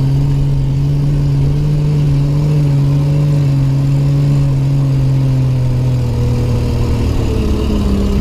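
Truck engine running steadily under way, a constant hum that eases slightly near the end.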